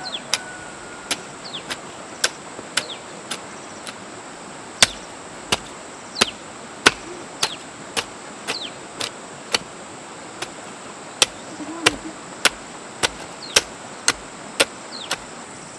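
A hoe chopping into soil in steady strokes, about one and a half a second, over a constant high-pitched insect drone.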